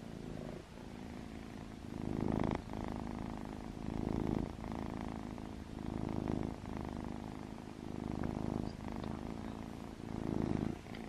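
Ragdoll kitten purring, a steady low rumble that swells louder about every two seconds.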